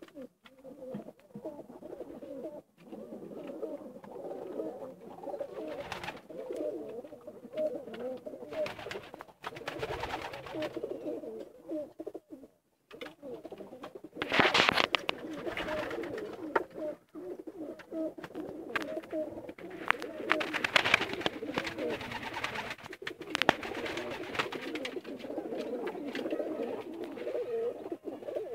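A flock of pigeons cooing continuously, many overlapping low warbling coos, with louder rustling bursts about halfway through and again a few seconds later.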